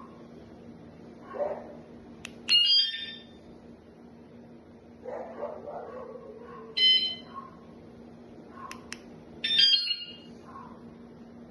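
Wsdcam wireless motorcycle vibration alarm letting out three short, loud electronic blasts of several high tones together, about two and a half, seven and nine and a half seconds in. A steady low hum runs underneath.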